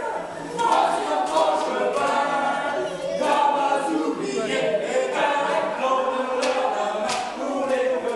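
A group of voices singing together, choir-style.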